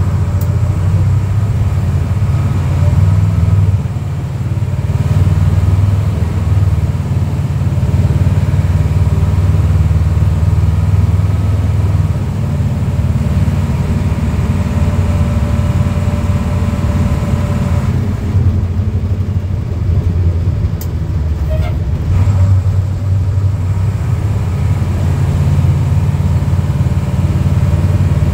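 Cat 3208 turbodiesel V8 of a 1987 Ford C8000 fire engine running under way, heard from inside the cab as a steady low drone. It eases off briefly about four seconds in, and again for a few seconds past the middle.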